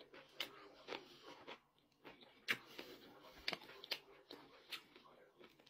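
Faint chewing and mouth clicks of a person eating roast chicken by hand, with a scattering of short wet snaps as the meat is torn apart.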